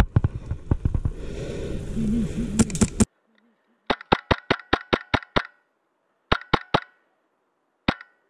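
Rustling and footfalls of someone moving through dry leaves, cut off abruptly about three seconds in. Then sharp cracks of a Wolverine MTW HPA airsoft rifle firing: a run of eight shots at about five a second, then three more, then a single shot.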